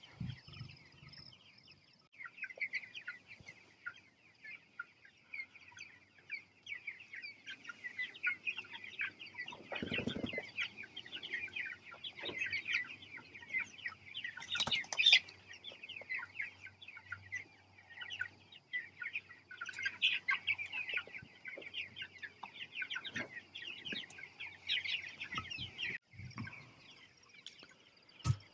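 A flock of young meat chickens chirping and clucking steadily as they are fed, with a few knocks, the largest about ten seconds in.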